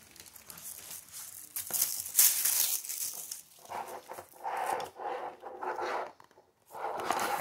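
A roll-top dry bag's stiff coated fabric crinkling and rustling as it is handled, unrolled and pulled open.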